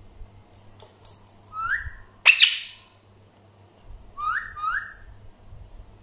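Alexandrine parakeets giving short, rising whistled calls, four in all: the loudest, sharpest one about two seconds in, and the last two in quick succession.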